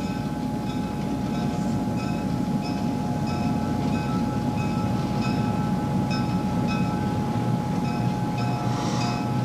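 Diesel switching locomotive running with a steady low rumble while its bell rings over and over, about every two-thirds of a second. The bell is rung automatically while the radio transmitter's dead man lever is held off center.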